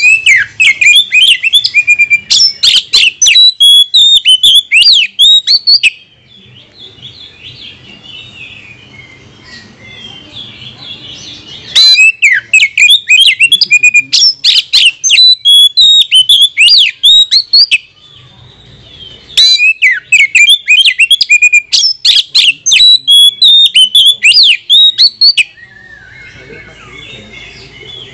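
Oriental magpie-robin (kacer) singing: three long, loud bouts of rapid, varied whistles and chattering notes, with softer twittering in the pauses between.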